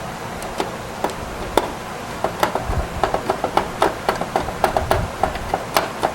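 Light, irregular clicks and taps of hands handling hard computer-case parts, growing quicker and denser after about two seconds, over a steady hiss.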